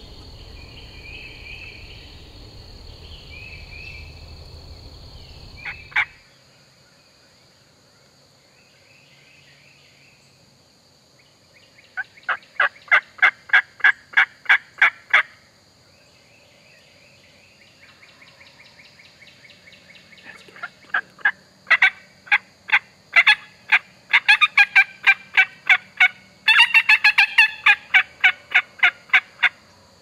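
Wild turkey yelping: long runs of sharp, evenly spaced yelps at about five a second, one about twelve seconds in and a longer one from about twenty seconds in, loudest and densest near the end. Before that, a steady evening insect chorus cuts off suddenly about six seconds in.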